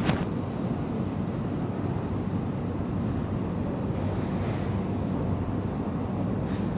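Steady low rumble of street traffic with wind buffeting the microphone, and a single short knock right at the start.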